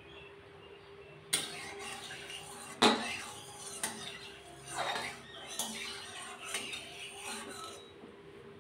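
A metal spatula knocking and scraping in an aluminium kadai as it spreads hot oil: a sharp clink about a second and a half in, a louder knock near three seconds, then several seconds of scraping strokes with smaller knocks.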